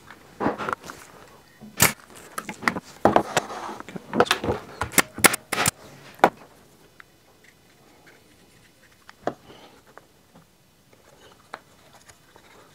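Wooden jig parts and tools knocking and clattering on a workbench while a jig is assembled: a quick run of sharp knocks and taps for about the first six seconds, then only a couple of isolated clicks.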